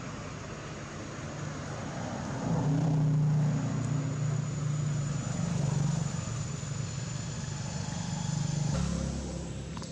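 Low, steady motor-vehicle engine hum that swells about two and a half seconds in and then slowly eases off.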